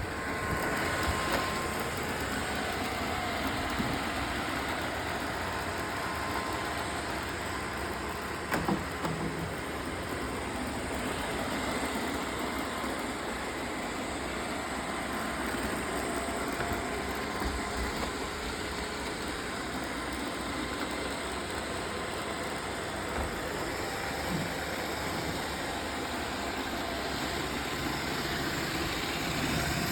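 Roomba robot vacuums running, a steady whir of motors and brushes, with a few short knocks as they bump into things.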